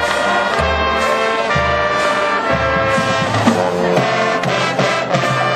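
High school marching band playing: brass holding full chords over low bass notes that change about once a second, with drum hits.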